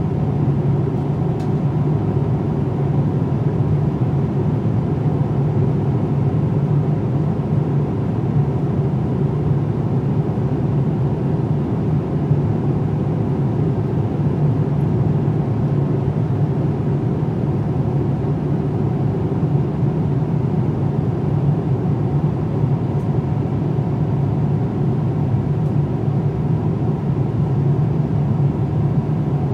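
Steady low rushing noise inside the cabin of a Boeing 787-9 airliner.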